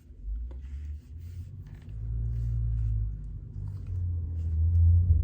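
Low rumble of handling noise on the microphone, swelling and fading and loudest near the end, with faint rustling as the black leather belt is put on.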